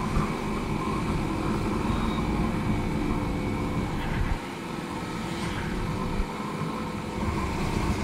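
Motorcycle riding at road speed: steady wind rush over the microphone mixed with the engine's drone, dropping in level for a while about halfway through.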